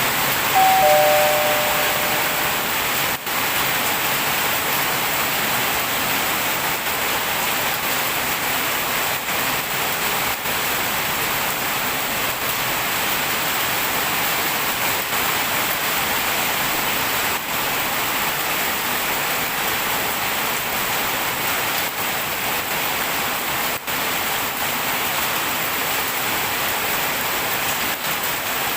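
Heavy rain falling steadily, a dense even hiss. Two short steady tones sound briefly about a second in.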